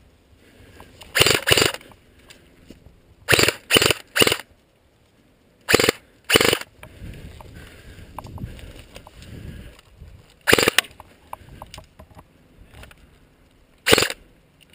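Airsoft electric rifle firing short bursts, about eight in all, some in quick pairs and triples with pauses between.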